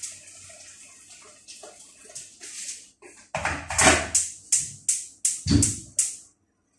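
Water poured from a kettle into a cooking pot, a steady rush. About three seconds in it gives way to a run of about nine sharp, fast-fading strokes at the stove, roughly three a second.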